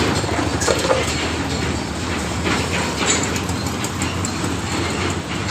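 A machine running with a steady low drone under a dense, rattling clatter and scattered clicks.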